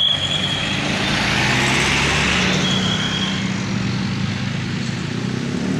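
A van's engine running as it drives slowly past close by, its tyre and engine noise swelling about two seconds in. A short, high steady whistle-like tone sounds twice over it.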